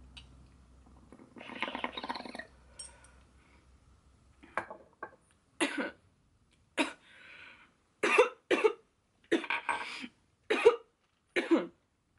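A woman breathes out a long breath about a second in, then coughs about ten times in short sharp bursts, a coughing fit from a dab hit off a glass rig.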